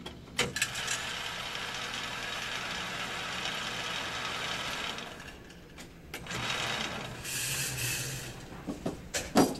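Electric shooting-range target carrier running on its overhead track, carrying a paper target downrange: a steady motor hum with rattling. It pauses about five seconds in and runs again for a few seconds. A few sharp knocks come near the end.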